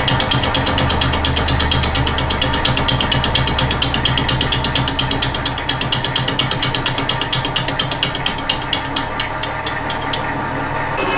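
Metal lathe boring out a broken cast iron flywheel. The boring bar makes a rapid, even ticking as it cuts through the jagged broken edges, over the steady hum of the lathe running. The ticking stops about ten seconds in while the lathe keeps running.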